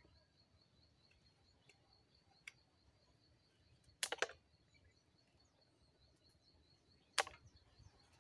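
A wet cloth snapped and shaken out by hand: a quick cluster of sharp flaps about four seconds in and one more near the end. Underneath, a faint steady high-pitched trill runs throughout.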